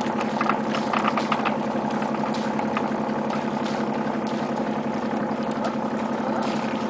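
A boat engine running steadily at an even pitch, with a few faint clicks in the first second or so.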